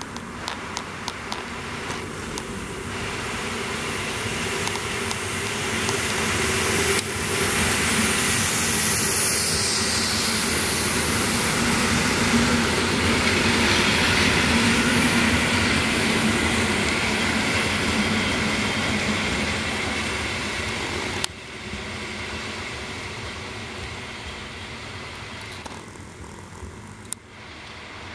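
Polregio EN57 electric multiple unit pulling out and running close past, with a steady low electric hum under the rumble and hiss of the wheels and a run of clicks from the wheels on the rail near the start. The sound builds as the train nears, drops suddenly about 21 seconds in, and then fades as it moves away.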